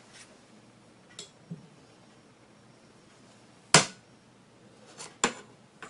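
Porcelain spoon clinking against a ceramic plate as it is set down: one sharp click about four seconds in, with a faint tap earlier and two lighter knocks near the end.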